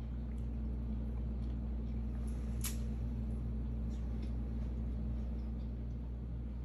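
Steady low hum of room tone with a few faint clicks, the sharpest about two and a half seconds in.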